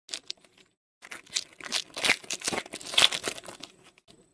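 Foil wrapper of a baseball card pack being torn open and crinkled by hand. A few light crinkles at the start, then about three seconds of dense crackling tearing, loudest in the middle, which stops just before the end.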